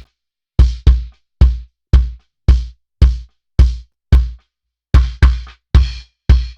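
A kick drum played solo through the kick-in microphone, about a dozen hits at roughly two a second with a few quick doubles. Each hit is a deep low thud with a sharp beater click that dies away quickly.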